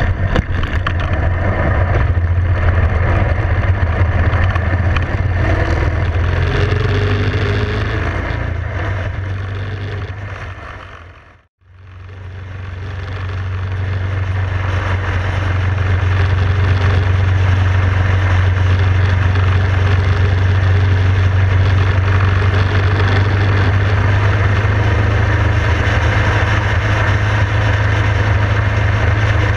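Motorcycle engine running under way, heard from the rider's own bike with wind rushing on the microphone. About twelve seconds in the sound fades out and back in, then holds a steady drone at cruising speed.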